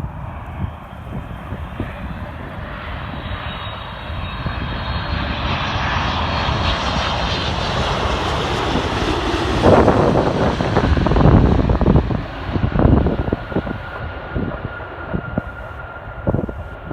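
Four turbofan engines of a Boeing 747 freighter passing low as it comes in to land: a high whine over a growing jet noise that builds for about ten seconds, is loudest with a deep rumble as the jet goes by, then slowly fades.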